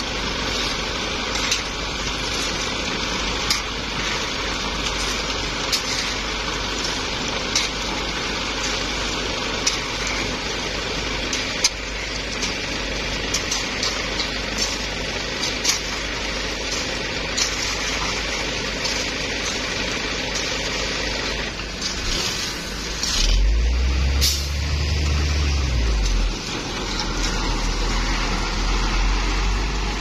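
Concrete mixer truck running steadily as wet concrete is discharged down its chute, with scattered sharp clicks. A little past twenty seconds in, the truck's diesel engine revs up and back down over about three seconds, then settles to a steady low rumble.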